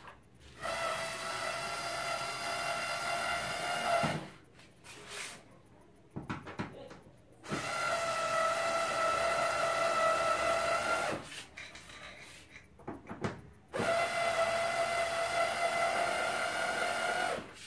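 Cordless electric screwdriver running in three spells of about three and a half seconds each, a steady motor whine as it backs out the screws of an LED TV's plastic back cover. Small clicks and knocks fall in the pauses between spells.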